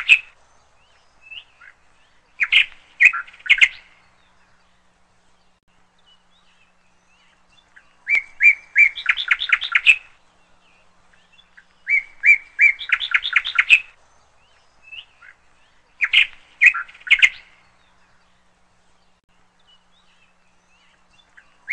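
Songbird singing in short phrases, one every few seconds. Each phrase starts with a few spaced chirps and then runs into a fast string of notes.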